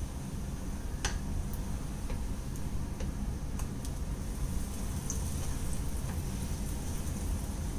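Wooden spatula tapping and scraping against a nonstick frying pan as a slice of bread is turned in ghee: a few light clicks, the clearest about a second in, over a steady low hum.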